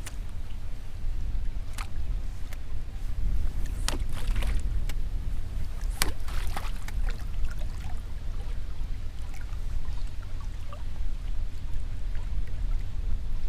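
Steady low rumble of wind and water around a small fishing boat, with a few sharp clicks about two, four and six seconds in.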